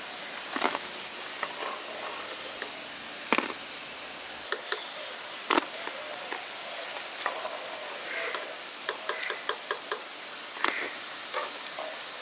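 Semolina pakoras deep-frying in hot oil: a steady sizzling hiss with scattered sharp pops and clicks.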